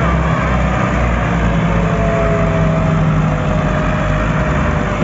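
Massey Ferguson 385 tractor's diesel engine labouring under heavy load, a steady low throbbing as it hauls a loaded sugarcane trolley that the rough road keeps it from pulling freely.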